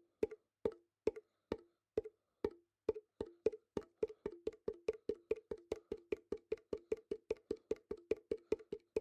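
Slit drum struck over and over as a heartbeat effect, each stroke a short pitched knock. The beats come slowly and unevenly for the first few seconds, then quicken to a steady, fast pulse of about five strokes a second.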